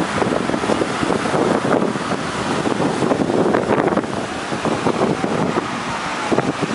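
Fast mountain river rushing over rocks in whitewater rapids, a steady loud roar of water.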